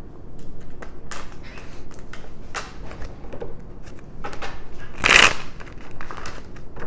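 Tarot cards being picked up and handled on a stone countertop: a string of papery slides and light taps, with a louder swish about five seconds in.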